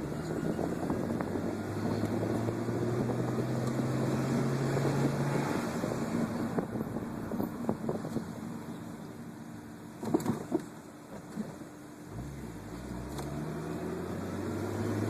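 A motor vehicle running with a rattle: many irregular small clatters over a steady engine note that fades about a third of the way in. There are a couple of sharp knocks around two-thirds through, and then the engine note comes back and rises toward the end.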